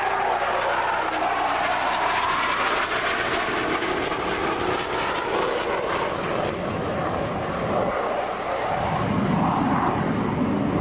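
Jet noise from a pair of F-15 Eagle fighters flying overhead, a steady rushing roar. A tone in it drops in pitch in the first moments, and the sound turns deeper about nine seconds in.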